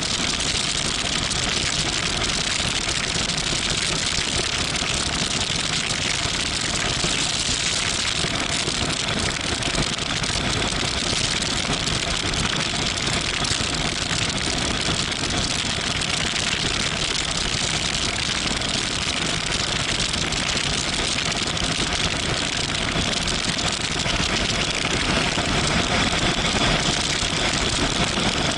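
Steady wind rush over the microphone of a motorcycle at cruising speed, with the Yamaha MT-07 Tracer's 689 cc parallel-twin engine running evenly underneath.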